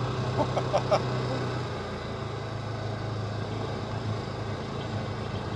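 Polaris Ranger utility vehicle's engine running steadily while driving along a dirt track. Its note eases slightly lower and quieter about two seconds in.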